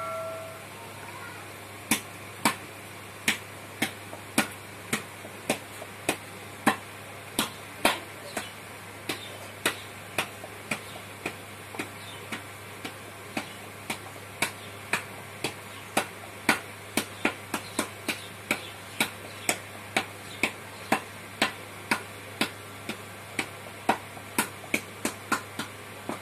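Potter's wheel turning, with a sharp knock repeating nearly twice a second over a low steady hum.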